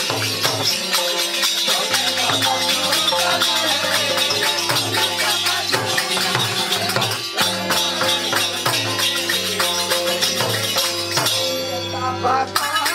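Live Tharu folk music: a double-headed barrel drum keeping a fast steady beat, with a harmonium's held notes and the jingle of small hand cymbals.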